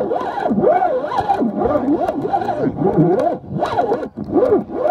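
Carp reel's drag screaming as a hooked carp takes line, a buzzing whine that keeps sliding up and down in pitch, with a couple of brief dips near the middle and end.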